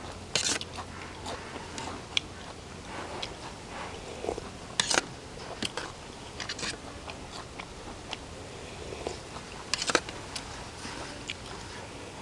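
Close-miked eating: crunchy bites and chewing of spicy snail salad and raw vegetables, with many small crackles. Three louder crunches come about five seconds apart.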